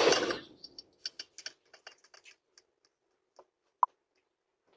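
A series of faint, sharp, irregular light clicks and ticks, thinning out over the first three seconds, with one short, loud high beep a little before the end.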